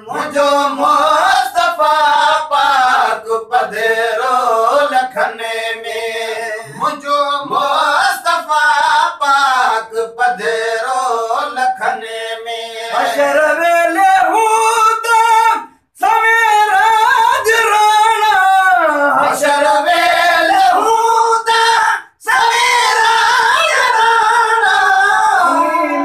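Men singing a slow song with long, held notes, a melody winding above a steadily held pitch. The sound drops out briefly twice.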